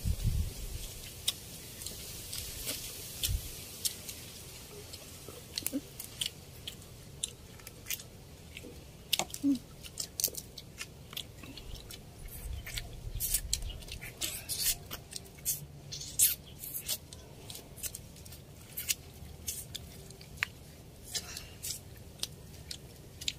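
Close-up eating sounds: chewing and lip smacks, heard as many short, irregular sharp clicks, as people eat rice and crab with their hands.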